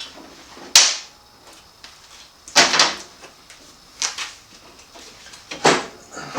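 Four sharp knocks and clatters of tools or parts being handled, spaced one to two seconds apart. The first, about a second in, is the loudest.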